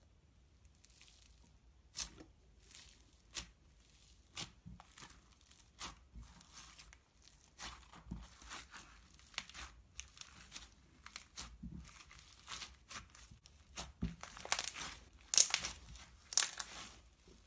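White slime mixed with green foam beads (floam) crackling and popping as hands squeeze and knead it, in many short irregular pops that grow louder and denser near the end.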